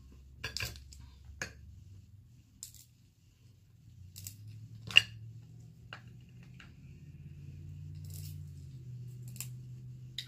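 Dungeness crab shell being cracked and picked apart by hand: scattered sharp cracks and clicks, about ten in all, the loudest about five seconds in, over a faint low hum.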